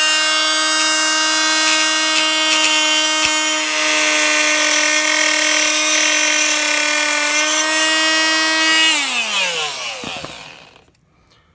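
Handheld power cutting tool running at a steady high whine while cutting down parts, with a gritty hiss over the tone. About nine seconds in it is switched off and winds down, its pitch falling as it fades away.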